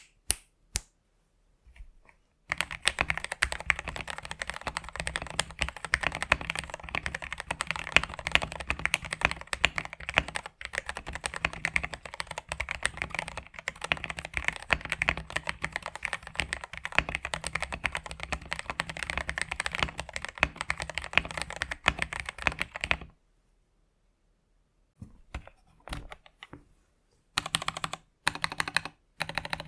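Mechanical keyboard typing test: a TM680 board with lubed Gateron Yellow linear switches on a PC plate and XDA-profile keycaps, typed on quickly and steadily for about twenty seconds. It stops for a couple of seconds, then comes a few single strokes and short bursts of typing near the end.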